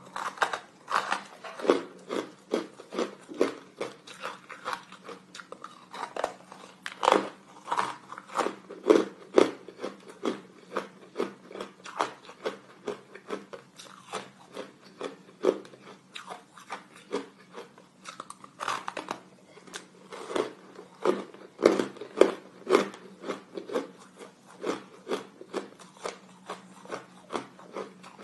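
Hard, crunchy frozen ice being bitten and chewed close to the microphone: a run of sharp cracking crunches, a few each second, with a short lull about two-thirds of the way through.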